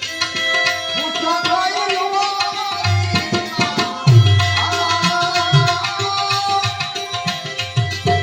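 Instrumental passage of a Gujarati bhajan: tabla playing under a pitched melody instrument, with deep bass drum strokes coming in from about three seconds in.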